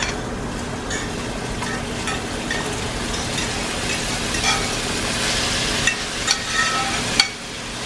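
Browned ground beef and pork sizzling as a metal spoon scrapes it out of a skillet into a hot pot, with scattered clicks and scrapes of the spoon against the pans. A sharp click comes near the end, and the sizzle briefly drops.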